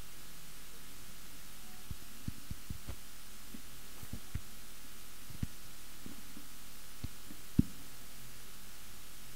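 Steady hiss and low hum, with a scattering of soft, short low thumps at uneven intervals, bunched between two and five seconds in; the loudest single thump comes about seven and a half seconds in.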